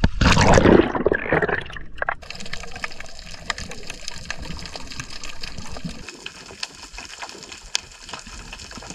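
Water rushing and splashing as a diver goes into the sea. About two seconds in it gives way to a quieter steady underwater hiss dotted with faint crackling clicks.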